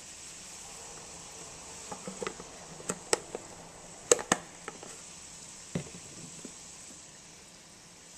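Beef stew meat sizzling faintly in a pan, with a run of sharp clicks and taps from about two to six and a half seconds in as a plastic seasoning shaker is shaken and handled over it.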